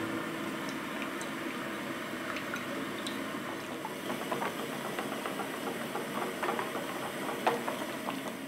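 Electric mixer running steadily, with small clicks scattered through it, and cutting off near the end.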